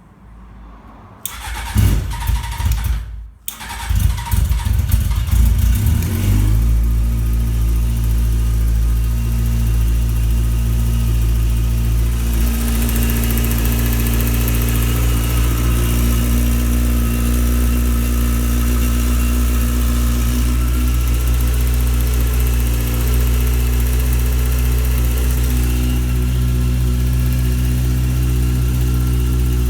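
Honda CBR600F inline-four engine cranking and starting about a second in with its immobiliser bypassed. It stops briefly, catches again, runs unevenly for a few seconds, then settles into a steady idle.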